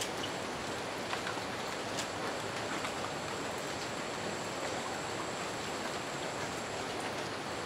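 Steady rushing of a fast-flowing rainforest river, with a faint steady high tone above it and a few faint ticks.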